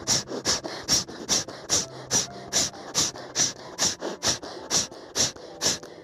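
Kapalbhati breathing: rapid forceful exhalations through the nose, each a short sharp hiss, about two and a half a second in a steady rhythm.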